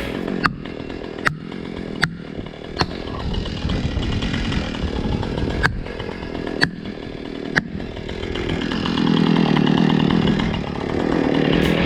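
Chainsaw running and cutting oak, louder from about eight seconds in as it bears down in the cut. Sharp cracks come several times in the first eight seconds or so.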